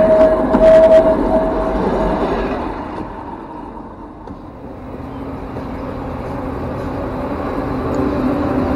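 Lxd2 narrow-gauge diesel locomotive passing overhead and moving away, with a steady high tone dying out in the first second or two. From about five seconds in, a train running on the line above grows steadily louder as an electric locomotive hauling freight wagons comes onto the crossing bridge.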